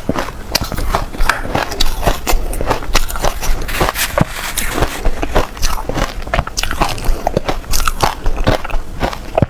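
Close-up biting and crunching of frozen shaved ice flavoured with matcha, a fast, irregular run of crisp crunches throughout.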